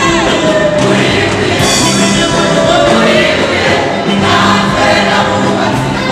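Women's gospel choir singing through microphones over instrumental backing with sustained low bass notes.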